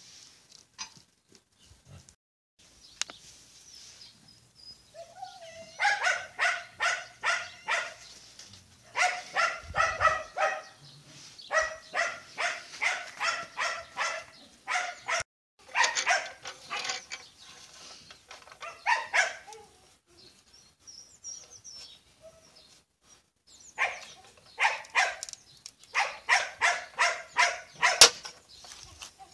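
Dog barking in quick runs of short yaps, about three a second, in several bouts separated by pauses.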